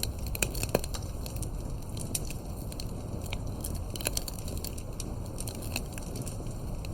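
Fireplace crackling: irregular snaps and pops over a steady low rumble.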